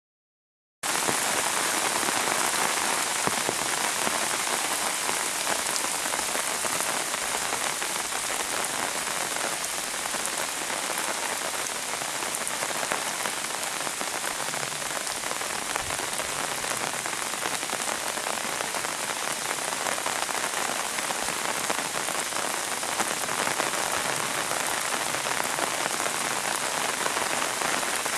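Pouring rain falling steadily in an even hiss of drops, starting abruptly just under a second in.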